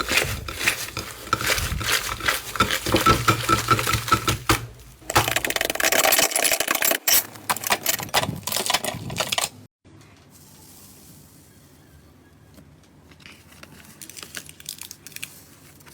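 Slime being squeezed and pressed by hand, giving dense, fast crackling and popping. About ten seconds in the sound cuts off suddenly, and a much quieter stretch follows with only scattered soft crackles.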